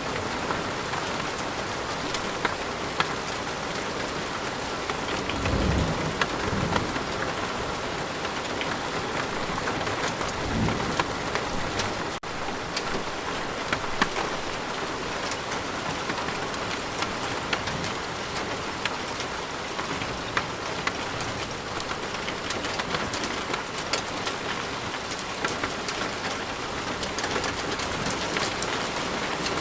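Steady rain with drops pattering, and low rumbles of thunder about six seconds in and again about eleven seconds in.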